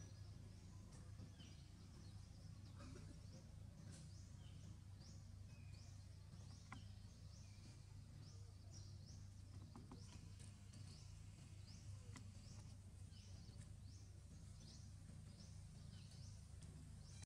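Faint outdoor ambience: many small high chirps, each sweeping downward, repeating about once or twice a second over a low steady hum, with a few faint clicks.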